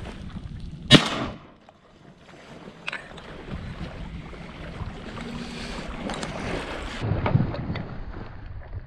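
A single shotgun shot about a second in, sharp and the loudest thing here, trailing off quickly. Steady wind noise on the microphone before and after it.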